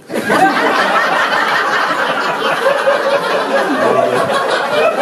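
Audience laughter, breaking out suddenly and staying loud.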